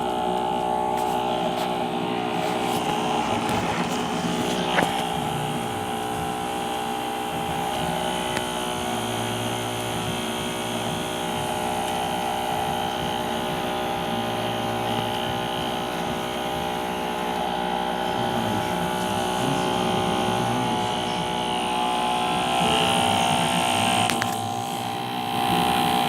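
Small electric fan motor of a homemade air conditioner running steadily, a hum made of several fixed tones over a rushing air noise, with a single sharp click about five seconds in.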